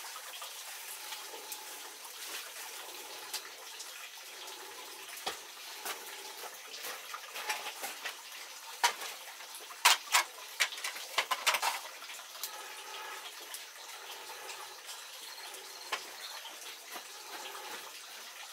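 A pot bubbling and steaming on a wood-fired stove, a steady watery hiss. Several sharp clicks and knocks cluster around the middle.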